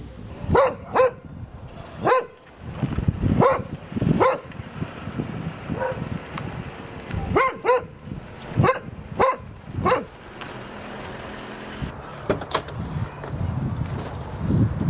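A dog barking repeatedly in two runs of short barks, over a low engine rumble from a car.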